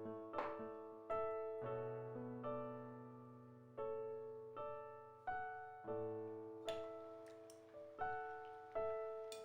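Background music: a slow solo piano melody, single notes struck about once or twice a second and left to ring.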